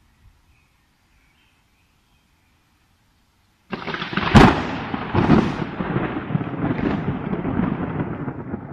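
Loud thunder starting suddenly about four seconds in: a sharp crack, then a rolling rumble with more cracks in it.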